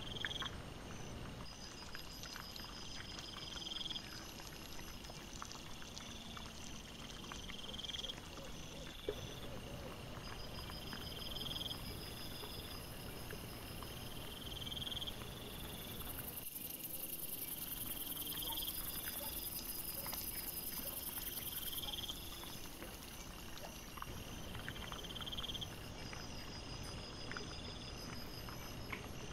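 Night insects chirping in a regular pattern, a short chirp every two to three seconds with trains of higher pulsed notes between, over a steady hiss. Faint scattered clicks and rustles come from wild boar piglets rooting and feeding on grain on the ground.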